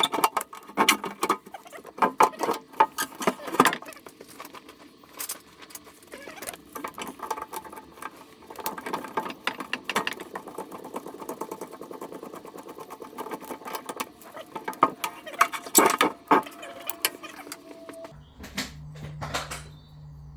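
Irregular metal clinks, knocks and scraping as the old mixer tap is worked loose and taken off the sink, heaviest at the start and again about three-quarters of the way through. Near the end a steady low hum starts.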